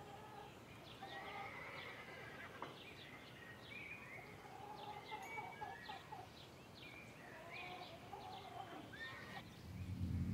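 Faint outdoor chirps and calls of birds, many short rising and falling notes. Near the end a steady low rumble begins.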